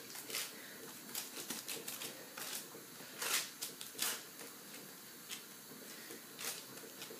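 Fingertips patting and pressing soft butter biscuit dough flat on a sheet of baking paper: irregular light taps and paper rustles, with a few louder taps near the middle.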